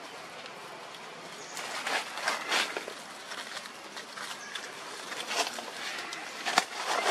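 Dry leaf litter rustling and crackling in short irregular bursts as macaques move over it, starting about a second and a half in, over a steady outdoor hiss.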